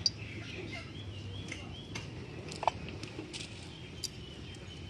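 Quiet outdoor background of birds chirping, with one short, louder call a little past halfway, a few faint clicks, and a low steady rumble underneath.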